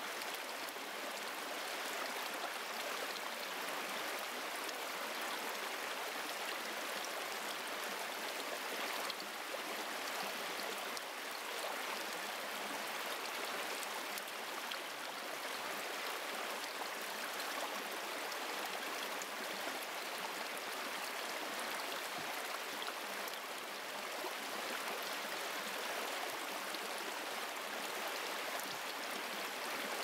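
Shallow stream running over rocks: a steady, even rush of water with no lulls.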